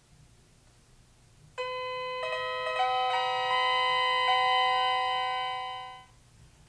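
Roll-up electronic keyboard playing through its small built-in speaker: about a second and a half in a held note begins, further notes join one after another into a sustained chord, and the sound fades out near the end.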